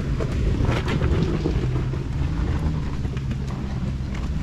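Nissan Pathfinder R51 4x4 engine running under way off-road, with wind rumbling on the microphone and a few sharp knocks about a second in.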